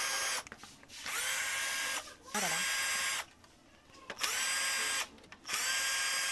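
Small electric drill run in short bursts of about a second, about five times, its whine rising quickly at each start and then holding steady.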